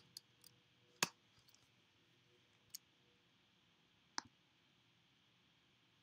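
Three separate computer mouse clicks, spaced about a second and a half apart, over near silence.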